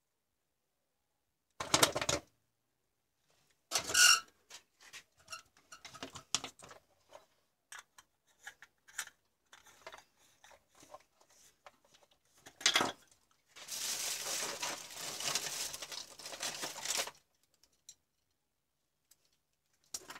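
Handling noise as a compact fluorescent bulb's plastic base and circuit board are opened and moved about: scattered clicks and knocks, three of them loud, and past the middle a steady scraping rustle of about three and a half seconds.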